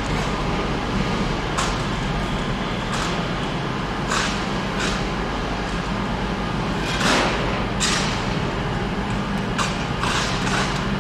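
Diesel multiple unit running with a steady low engine hum as it pulls away into a tunnel, with irregular sharp knocks from the track every second or so, the loudest about seven seconds in.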